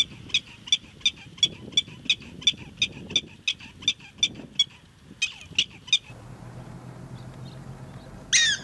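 Prairie dog alarm calling: a rapid, even series of short, high barking chirps, about three a second, then a few sliding chirps after a pause. Near the end comes a single loud call that falls in pitch. A faint low hum sits under the quieter stretch before it.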